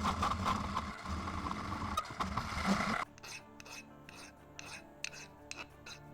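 Hand filing of a part for a home-made airgun trigger: about three seconds of loud, rough rasping, then lighter, regular file strokes at about two a second.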